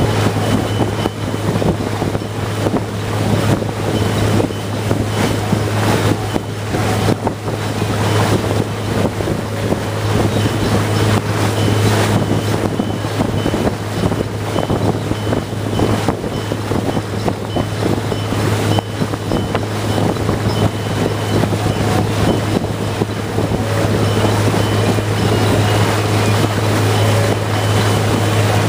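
Boat under way: its engine runs with a steady low drone while the wake churns and rushes behind the stern. Wind buffets the microphone throughout.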